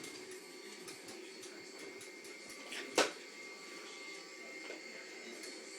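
Vacuum cleaner running steadily with a thin high whine over its hum, and one sharp knock about three seconds in.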